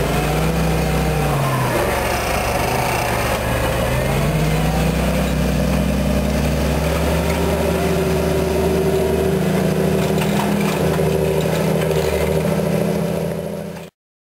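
John Deere 8530 tractor's six-cylinder diesel engine running under load while pulling a subsoiler through the soil. Its pitch wavers over the first few seconds, then holds steady, before fading and cutting off near the end.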